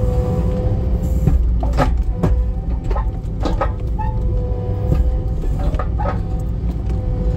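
Skid steer engine running steadily under load, with a steady whine over its rumble and irregular metal knocks and clanks, about one every half second to a second, as the machine with its splitter attachment moves.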